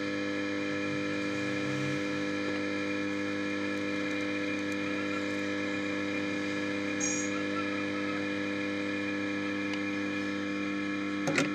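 A steady machine whine holding several fixed pitches at once, never changing in pitch or level, with a few sharp clicks near the end.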